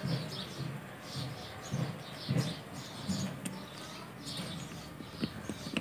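Faint background bird chirps, short and falling, repeating over a low murmur, with a few light clicks in the second half as a screwdriver turns the screw fixing a transistor to its aluminium heat sink.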